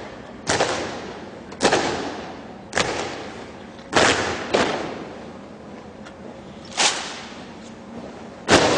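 A series of about seven sharp, loud hits at uneven spacing, roughly a second apart, each fading out over about half a second.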